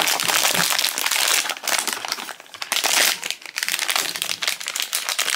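Thin foil blind-box pouch crinkling and crackling as hands work it open, with a couple of brief lulls.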